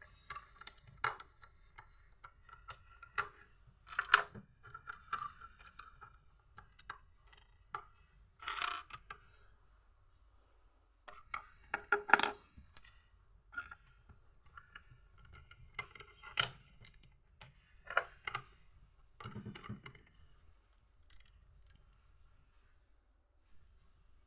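Small plastic Lego bricks clicking and clattering as they are handled, in irregular short bursts of sharp clicks and brief rattles.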